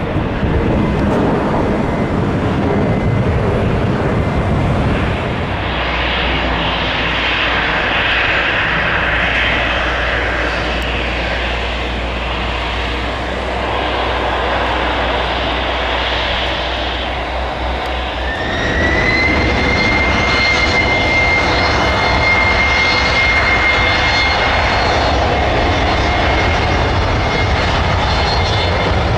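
Jet airliner engines running. About eighteen seconds in, a whine rises in pitch and then holds steady, and the engine sound grows louder.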